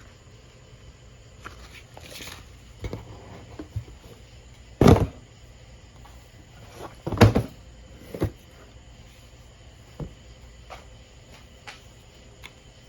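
Thumps and knocks from handling and fitting materials: two loud thumps about five and seven seconds in, with scattered lighter taps and clicks.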